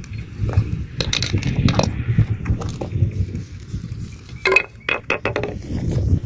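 Hard pebbles clinking and knocking as they are handled and tapped, with clusters of sharp clicks about a second in and again near the end, over a steady low rumble.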